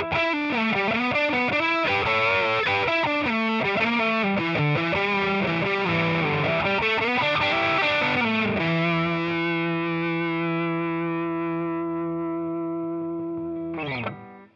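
Electric guitar played through a Marshall-style overdrive pedal, giving a distorted rock riff of changing notes and chords. About eight and a half seconds in, a final chord is left to ring and slowly fade for about five seconds before it is cut off.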